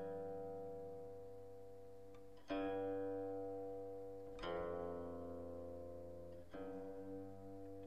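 Slow background music on a plucked string instrument: a new note or chord about every two seconds, each ringing out and fading.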